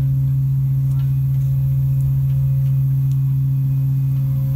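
Loud, steady low hum of a research ship's machinery on the working deck, unchanging throughout, with a few faint ticks.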